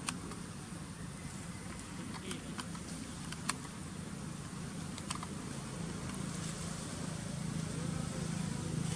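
A steady low motor drone that grows a little louder in the last few seconds, with a few scattered sharp clicks.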